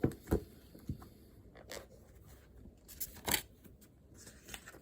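Scattered handling noises at a study desk: a few separate soft knocks and paper-like rustles, the loudest a little past the middle.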